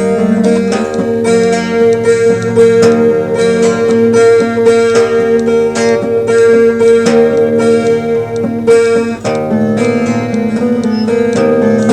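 Unamplified Baldwin 712 twelve-string semi-acoustic guitar, strummed and picked in repeated chords over a steady ringing note, recorded on a cassette tape recorder.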